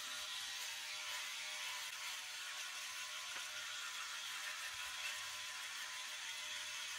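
Philips Norelco 9400 rotary electric shaver running steadily while its rotary heads are moved in small circles over beard stubble on the chin and neck.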